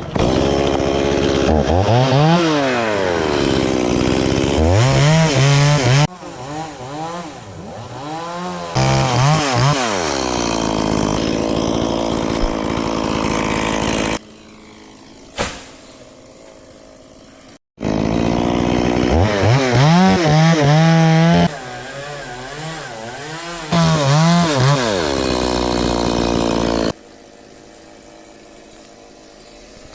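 Stihl two-stroke chainsaw revving up and falling back again and again, in loud stretches broken by two quieter spells.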